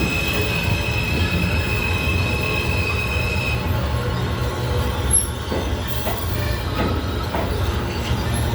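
New York City subway train running with a steady low rumble and a high, steady wheel squeal that stops about three and a half seconds in, followed by a few sharp clicks from the wheels over the track.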